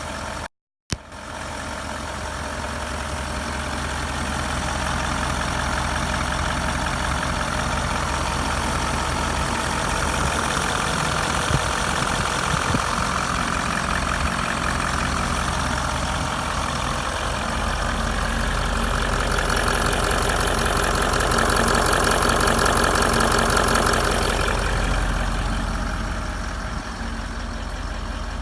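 2012 Range Rover L322 4.4 TDV8 twin-turbo diesel V8 idling from cold, steady and free of the prominent ticking noise it has had. The sound cuts out for a moment near the start, and a higher whir swells past the middle and then fades.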